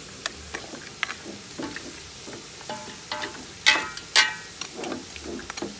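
Metal spoon stirring chunks of meat in a stainless steel cooking pot: scraping and small clinks, with two louder ringing clanks against the pot about two-thirds of the way through.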